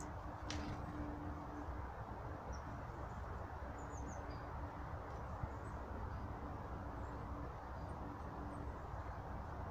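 A few faint, short, high chirps from small birds, over a steady rushing background noise with a faint hum that comes and goes.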